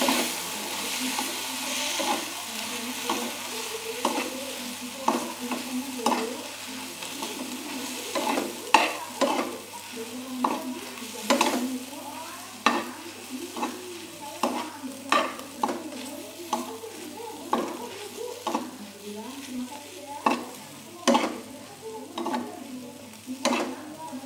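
A spatula stirring and tossing fried noodles in a frying pan, knocking and scraping against the pan irregularly about once a second. A light sizzle comes from the still-hot pan, with the stove's flame turned off, and fades after the first few seconds.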